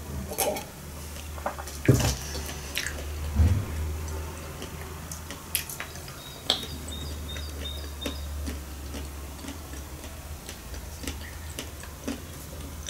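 Sipping and swallowing tea from a glass mug, with a few soft knocks and small clinks of the glass, over a low steady hum.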